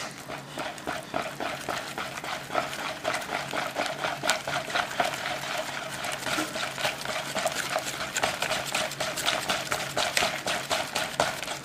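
Wire whisk beating a thick batter of mashed kabocha squash, condensed milk and eggs in a mixing bowl: quick, regular wet strokes, several a second.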